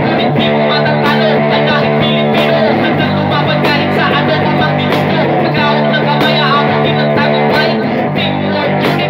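One-man band playing a rock song on electric guitar, with foot-worked percussion keeping a steady beat.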